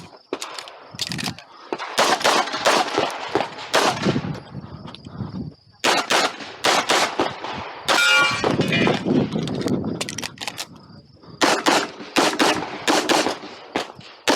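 Handgun shots fired in quick strings during a timed competition stage, several shots a second in clusters with brief pauses between them.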